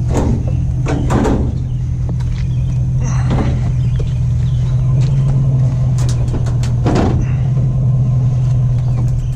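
Truck engine running with a steady low drone and road rumble, broken by a few short knocks and rattles about a second in, around three seconds in, and around seven seconds in.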